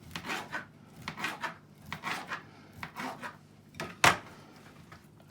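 Knife cutting leftover sausages on a wooden chopping board: short scraping strokes about once a second, then a sharp knock about four seconds in.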